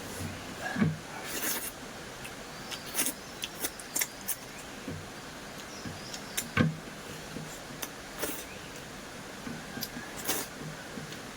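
Close-miked eating sounds: a person chewing a meal of rice and raw salad vegetables, with irregular sharp mouth clicks and smacks. There is a steady hiss underneath.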